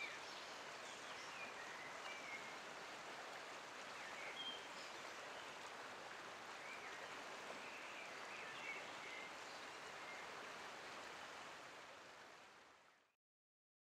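Faint, steady hiss of flowing river water, with a few brief high chirps over it; it fades out and goes silent just before the end.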